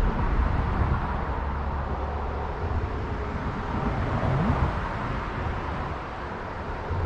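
Steady road traffic noise with a low rumble that eases off about two and a half seconds in.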